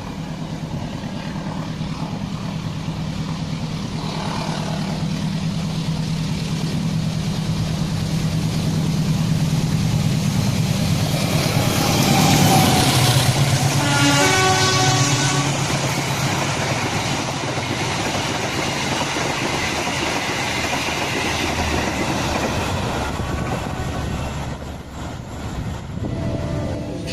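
Diesel locomotive approaching with its engine drone building. Around the middle it sounds its horn, the semboyan 35 signal, in short stacked tones. The train then rolls past with steady wheel and rail noise.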